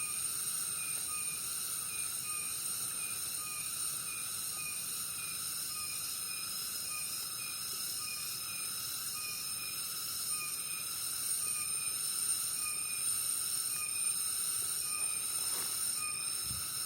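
Insect chorus in a rice field: several steady high-pitched trills, with a short chirp repeating about twice a second.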